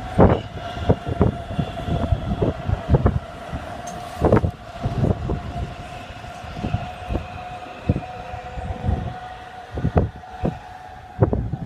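Hamburg S-Bahn Class 474 electric multiple unit rolling past while slowing to stop, its wheels clunking irregularly over rail joints and points, with a steady high whine throughout.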